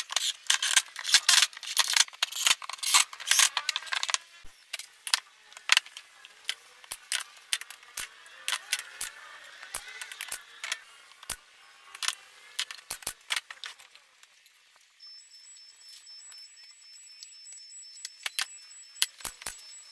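Workshop clatter from assembling a plywood cabinet box: a dense run of sharp clicks and knocks from handling fasteners, tools and panels, then scattered single knocks. A faint steady high-pitched tone sounds in the last few seconds.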